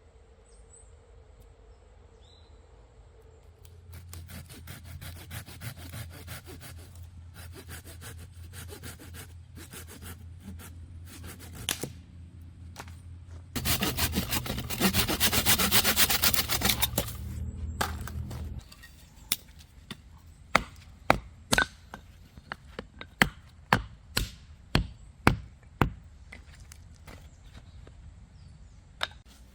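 Hand saw cutting through a piece of firewood in steady back-and-forth strokes, which grow louder and faster for several seconds near the middle before stopping. A series of about a dozen sharp wooden knocks follows.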